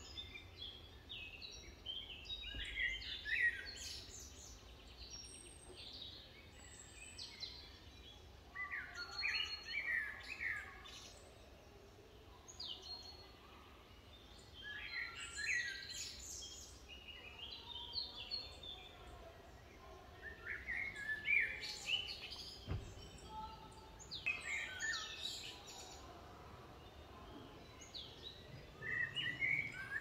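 Canaries chirping and twittering in clusters of quick notes a second or two long, returning every few seconds, over a faint low hum.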